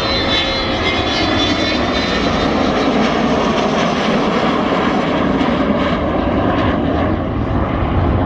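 Avro Vulcan bomber's four turbojet engines as the aircraft flies past low overhead: a loud, continuous jet roar. A high whistling whine drops slowly in pitch over the first couple of seconds, and the roar turns deeper as the aircraft passes.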